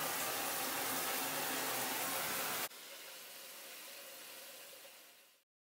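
Shower running: a steady hiss of spraying water. About two and a half seconds in it drops suddenly to a quieter spray, which fades out about half a second before the end.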